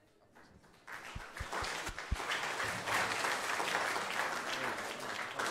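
Audience applauding: near quiet for about a second, then clapping that swells to its loudest about three seconds in and keeps going, with a few low thumps as it begins.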